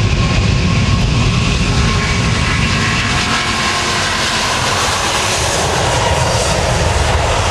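An Airbus A380's four jet engines at takeoff thrust as the airliner runs down the runway: a loud, steady jet noise with a deep rumble. The noise turns hissier about halfway through as the aircraft passes.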